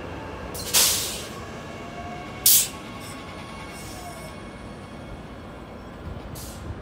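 Queensland Rail electric multiple-unit train running along a station platform with a steady rumble and faint wheel squeal. Two short, loud hissing bursts break in, one just under a second in and a shorter one about two and a half seconds in.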